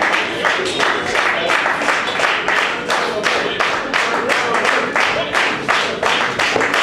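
Live band playing a groove with a fast, even beat of about four sharp hits a second, and the audience clapping along.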